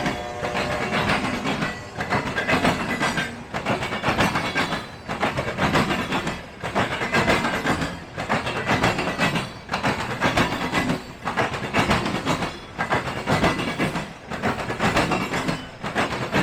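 Freight train cars rolling past at speed, steel wheels rumbling and clacking on the rails. The noise swells and dips about every second and a half as car after car goes by.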